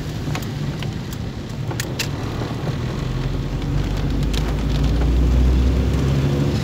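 Inside a car driving in heavy rain: a low engine and road hum that grows louder about three seconds in, with scattered sharp ticks of raindrops striking the roof and windscreen.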